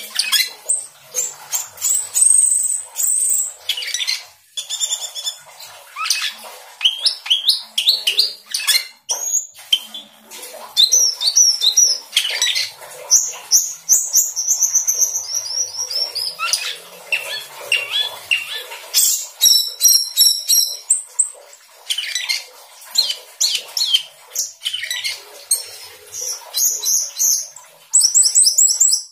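Asian glossy starling singing without a break: a fast, varied stream of high-pitched whistles, chirps, trills and sweeping notes, full of mimicked song.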